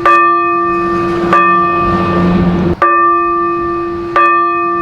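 Old church bell ringing, struck four times about a second and a half apart, each stroke ringing on into the next.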